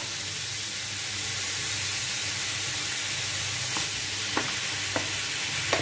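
Minced meat sizzling as it fries in a pan, stirred with a plastic spoon; a steady hiss with a few light clicks in the second half as the spoon knocks the pan.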